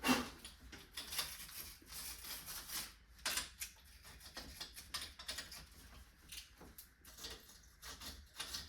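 Irregular light clicks, taps and scrapes of hands handling small hard parts and tools, with a louder knock right at the start and another about three seconds in.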